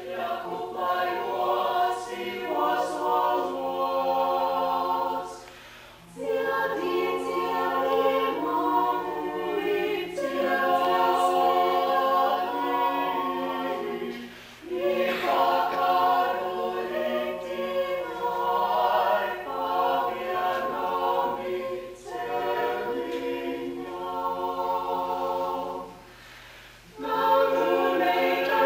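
Small mixed-voice vocal ensemble singing a Latvian song a cappella in harmony, phrase after phrase, with brief pauses between phrases.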